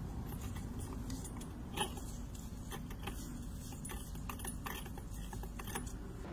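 Light, irregular metallic ticks and clicks as a rag-wrapped hand works against the compressor wheel inside a large turbocharger's intake, over a low steady rumble; the sharpest click comes a little under two seconds in.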